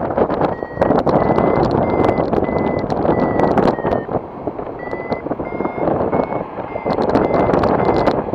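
Paragliding variometer beeping in short quick tones, about two or three a second, with the pitch shifting slightly and a brief pause near the middle: the beeps signal climbing in a thermal. Wind rushes loudly on the microphone underneath.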